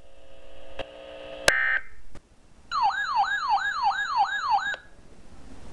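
Weather radio receiver sounding its warbling alert siren for a tornado warning: a tone sweeping up and down about three and a half times a second for two seconds, starting near the middle. Just before it, a short harsh electronic burst.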